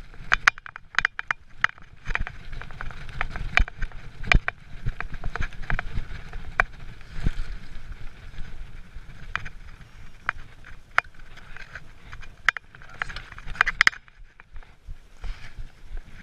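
Giant mountain bike riding fast down a rough dirt and gravel trail: tyres rumbling over the ground, with frequent sharp clicks and rattles from the bike over bumps. It quietens about fourteen seconds in.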